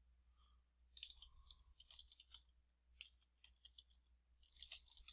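Faint computer keyboard typing: a run of quick, irregular key clicks that starts about a second in and stops just before the end.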